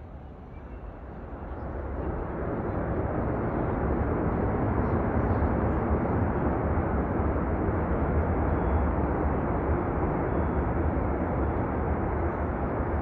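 Jet noise from a C-17 Globemaster III's four turbofan engines, growing louder over the first three seconds and then holding steady with a strong low rumble.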